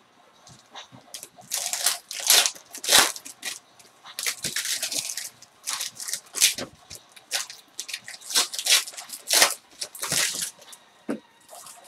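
Foil trading-card pack wrappers being torn open and crinkled by hand, in irregular bursts of crackling rustle.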